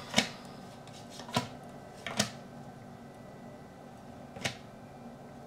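Tarot cards handled on a table: four short sharp clicks, spaced irregularly, over a steady low hum.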